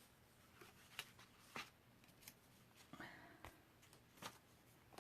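Near silence with a few faint taps and light rustles of paper and stamping supplies being handled on a desk.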